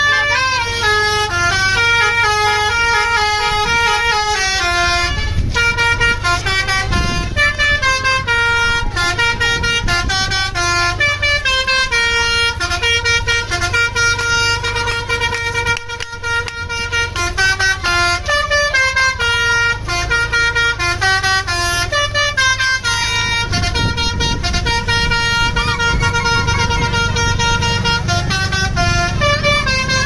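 Basuri V3 telolet horn on a tour bus playing a long melody of quickly changing, stepped notes, with the bus engine running underneath. The engine gets louder in the last quarter.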